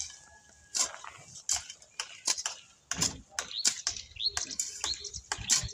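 A long-handled spade chopping and scraping through grass clumps and soil, in irregular sharp strokes about two a second.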